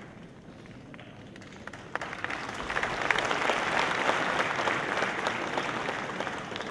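Audience applauding; the clapping grows louder about two seconds in, then slowly eases off.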